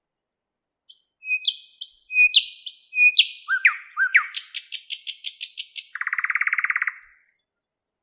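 Thrush nightingale singing one phrase: a run of sharp whistled notes that sweep down in pitch, then a fast series of loud clicks, about seven a second, ending in a quick, lower rattle.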